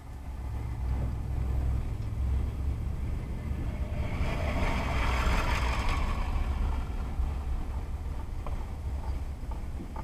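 Car driving, heard from inside the cabin: a steady low rumble of engine and road noise. About four seconds in, as the car turns off the road, a swell of tyre hiss rises and fades over roughly three seconds.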